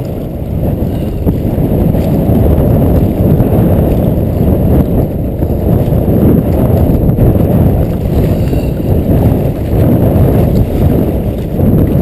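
Strong wind buffeting the microphone: a loud, unsteady low rumble that never lets up.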